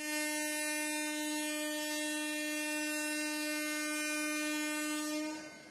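WDP4D diesel locomotive's horn sounding one long, steady note, fading out near the end.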